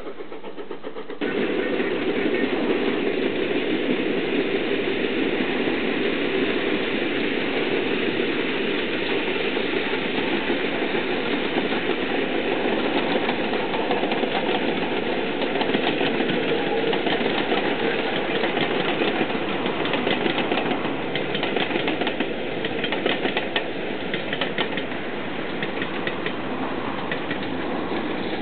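A passenger train running along the line: a steady rumble with a fast, even clatter that comes in suddenly about a second in.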